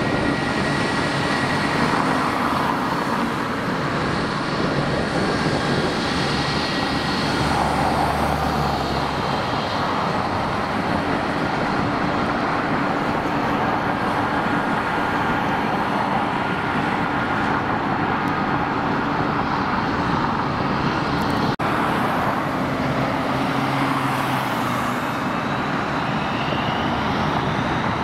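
Steady road traffic noise from passing cars, with jet airliner engine noise mixed in.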